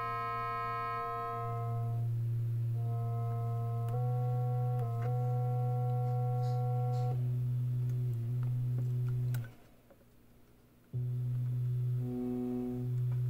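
Korg NTS-1 digital synthesizer playing held notes over a steady low tone, the pitch and tone colour stepping every second or two as its oscillator types are switched. About two-thirds of the way through, the sound cuts out for a second and a half, then comes back.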